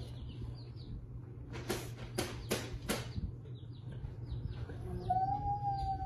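Baby chicks peeping in short, high, falling cheeps, with a quick run of sharp taps in the middle.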